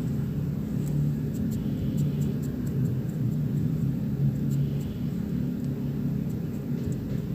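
Steady low hum, with faint light clicks now and then.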